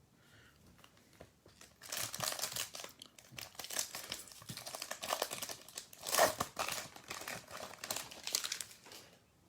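Plastic trading-card pack wrapper being torn open and crinkled in the hands, starting about two seconds in and continuing for several seconds with uneven crackling.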